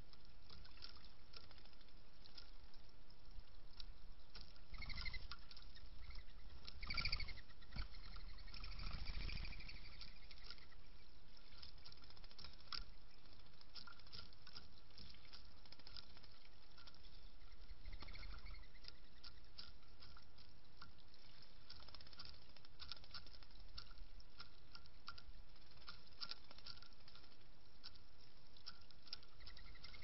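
Mourning dove pecking at seeds on a wooden platform feeder: irregular light clicks and taps throughout, with a few louder bursts about five to ten seconds in.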